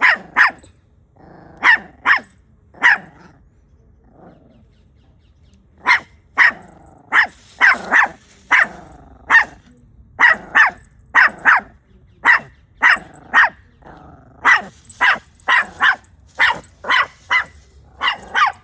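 A puppy barking in short, sharp, high barks, about thirty of them, in quick runs of two to four a second, with low growls between some barks. The barking breaks off for about three seconds near the start, then comes back faster.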